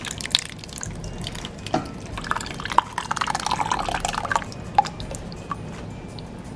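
Thick canned pasta sauce pouring and plopping out of the can onto cooked ground beef, with a few sharp clicks. The pouring is heaviest from about two to four and a half seconds in.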